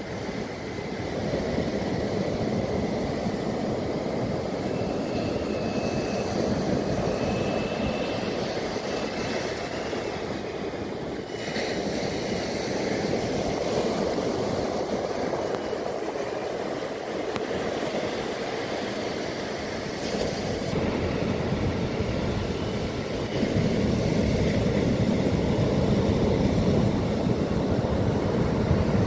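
Ocean surf breaking and washing up the beach, with wind buffeting the microphone: a steady rushing that grows louder for the last few seconds.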